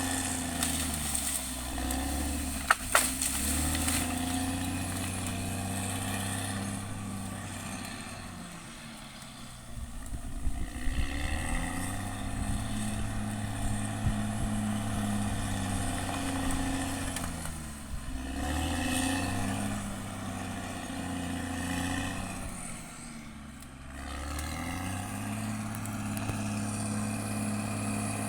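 Caterpillar D6R XL bulldozer's diesel engine running under load. Its pitch sags and then recovers three times as it pushes, with one sharp crack about three seconds in.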